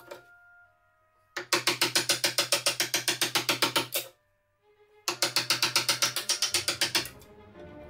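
Wooden mallet rapidly striking a wood chisel as it chops a slot in hardwood, about eight blows a second, in two runs with a pause of about a second between them while the chisel is moved.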